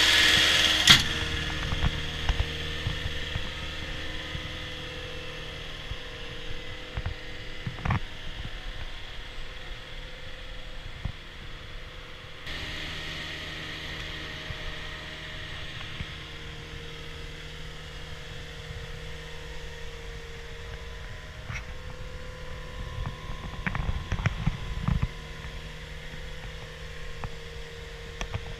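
Caterpillar 236D skid steer loader's diesel engine running steadily at low speed with a steady hum. A sharp click about a second in, as a louder, higher run dies down, and scattered knocks and low thumps near the end.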